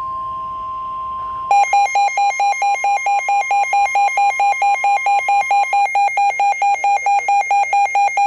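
Emergency Alert System alert tones for a severe thunderstorm warning. A steady two-tone signal sounds first, then about a second and a half in it gives way to a loud, buzzy alarm tone pulsing rapidly, about four and a half beeps a second.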